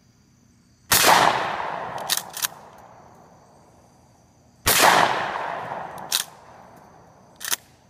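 Two blasts from a Mossberg 12-gauge shotgun, about four seconds apart, each trailing off in a long echo. Short sharp clacks follow each shot, typical of the action being cycled.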